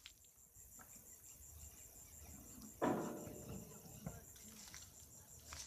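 Insects chirping in a high, fast, even pulse. There is one brief louder sound about three seconds in.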